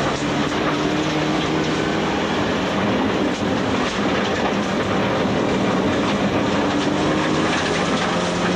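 Rally car engine running hard, heard from inside the cabin, its pitch rising and falling through the gears, over a constant roar of tyres on gravel with stones clattering against the underbody.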